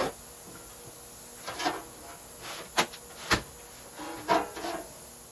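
A handful of sharp knocks and clacks, about five spread over several seconds, two of them loudest near the middle, over a faint steady hum.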